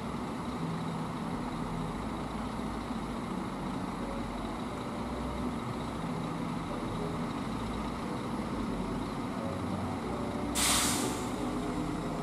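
Coach bus engine running steadily at low speed while the bus manoeuvres. Near the end comes one short, loud hiss of air-brake release.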